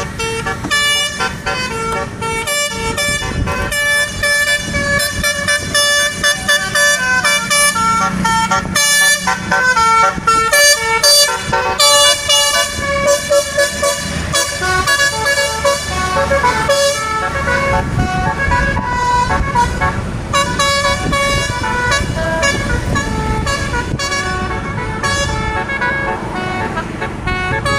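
Multi-tone "telolet" air horn on an Indonesian bus playing a fast tune, its notes changing several times a second without a break, thinning out just before the end.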